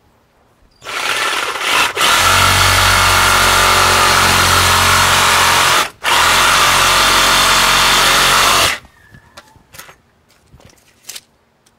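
Cordless reciprocating saw cutting through PVC pipe: it starts softly about a second in, runs at full speed with a brief stop about six seconds in, then cuts off near nine seconds. A few light clicks and knocks follow.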